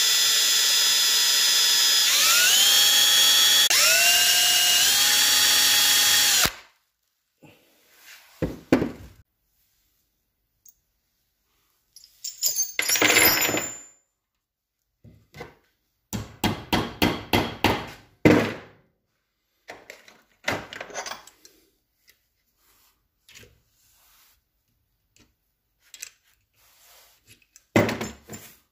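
Electric drill boring a pilot hole into a broken steel bolt for about six seconds, its motor whine stepping up in pitch twice before it cuts off. After that come scattered short clicks and runs of quick metallic taps as the screw extractor is set into the drilled hole.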